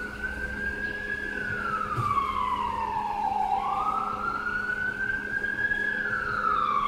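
Emergency vehicle siren on a slow wail, gliding up and down in pitch about every four to five seconds, over a steady low hum.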